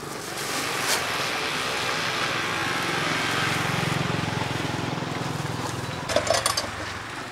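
A small-engined vehicle passes by: its steady engine hum grows louder to a peak in the middle and then fades away, followed by a few short clatters near the end.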